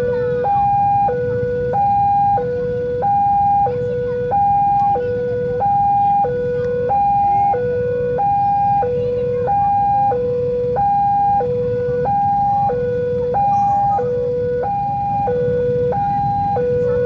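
Electronic railway level-crossing alarm sounding a steady two-tone high–low warning, the notes alternating about every two-thirds of a second, which signals a train approaching and the barriers down. Under it runs a low rumble of road traffic.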